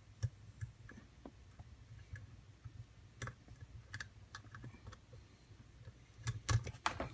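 Small, irregular metallic clicks of a lock pick and tension wrench working the pin stack inside an ABUS padlock, as it sits in a false set. A quicker, louder run of clicks near the end.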